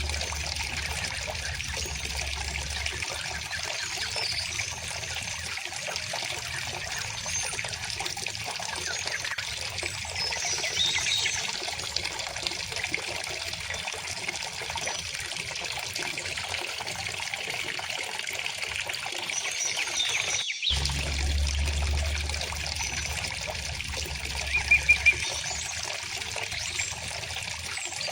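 River water flowing and trickling steadily, with birds chirping now and then over it; a quick run of short, louder bird notes comes near the end.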